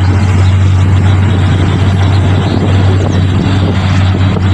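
Loud steady machine drone: a deep constant hum with a dense hiss over it, unchanging throughout.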